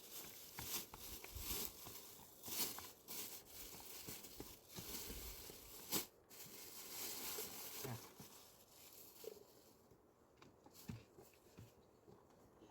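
Rustling and crinkling handling noises with scattered clicks and knocks, busier in the first two-thirds and fading quieter near the end.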